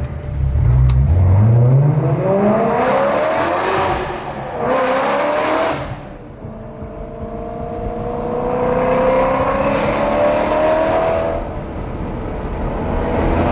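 BMW E92 M3's 4.0-litre V8 through an aftermarket titanium exhaust, accelerating hard through the gears. The engine pitch climbs steeply for about four seconds, then drops with upshifts around four and six seconds in. After that it climbs again more slowly, with a smaller dip near the end.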